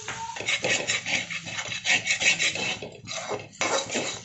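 Roasted gram flour (besan) being scraped into a kadai of fried spring onions: a utensil rasping against metal in a run of quick scraping strokes, with a short break about three seconds in.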